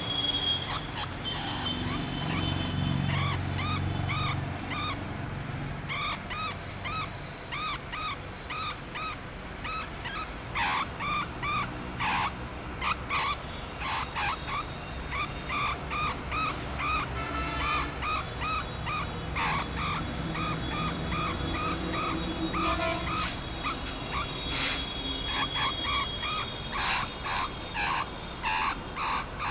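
A trapped rat squeaking in distress inside a metal cage trap: short, high, chirping squeaks repeated about two a second, with scattered sharp clicks.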